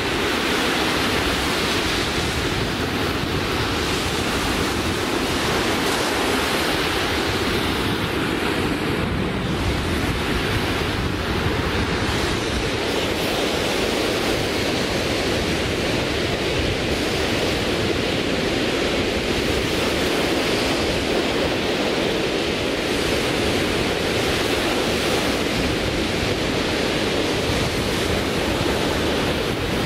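North Sea surf breaking on a sandy beach: a steady wash of waves that swells and ebbs, with some wind on the microphone.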